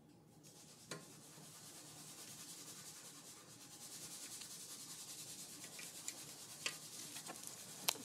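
Faint rubbing hiss with a few light metal clicks as a hex key works the loosened mounting bolts of a bicycle's rear disc brake caliper. The hiss grows slowly louder.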